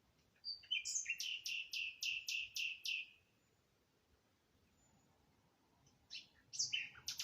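A songbird singing two phrases. About half a second in comes a run of about seven evenly repeated high notes lasting some two seconds. Near the end a second phrase opens with a couple of notes and breaks into a fast trill.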